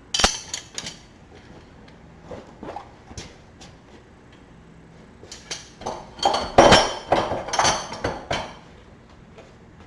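Metal clinking and knocking of tools and engine parts being handled: a couple of sharp clanks right at the start, then a run of louder clanks and rattles from about six to eight and a half seconds in.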